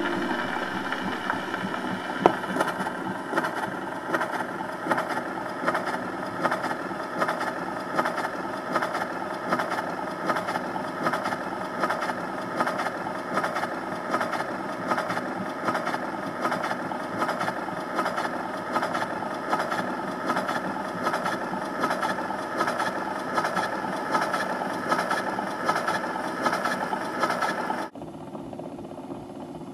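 Columbia wind-up gramophone running with no music playing: a steady mechanical whirr from the spring-driven turntable and the needle on the spinning record, with a fine, even run of small clicks. Near the end it drops suddenly to a quieter, thinner sound.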